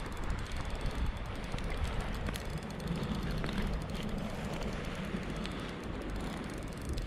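Spinning reel being wound against a hooked sea trout, its gears giving a fine rapid ticking, with wind rumbling on the microphone.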